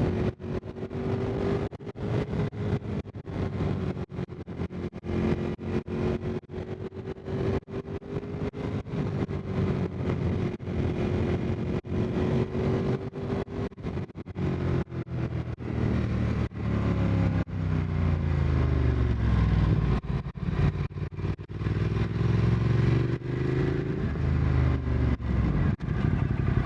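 Motorcycle engine and exhaust while riding, picked up by a wireless clip-on mic carried in the rider's pocket with no noise cancellation. The engine holds a steady note for the first half, then rises and falls through the revs in the second half, with frequent brief dropouts in the sound.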